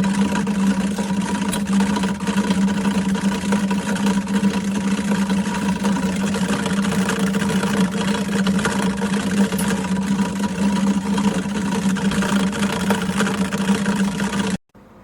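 Compressor dehumidifier running: a steady fan rush with a constant compressor hum. The sound cuts off suddenly near the end.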